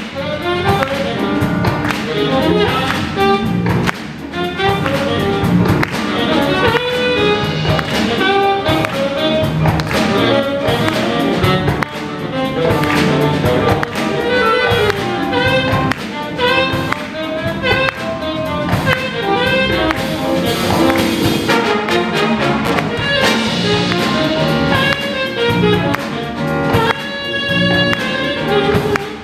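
Live jazz big band playing an upbeat funk-jazz tune: a saxophone solo over drum kit, electric bass and congas, with trumpets and trombones playing toward the end.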